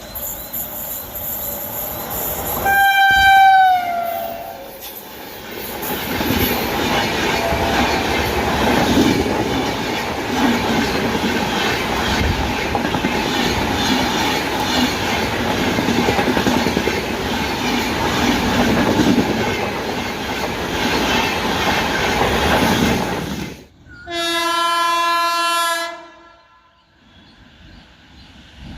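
Indian Railways express train passing at speed: a loud locomotive horn blast whose pitch drops as it goes by, then a long run of coaches rumbling and clattering over the rails. After a sudden cut, a second locomotive horn sounds steadily for about two seconds.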